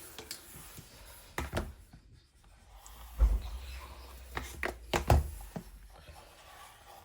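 Scattered small clicks, taps and scraping of hands and prying tools working on a tablet's glued-down screen, with a dull low thump about three seconds in and a sharper knock about five seconds in.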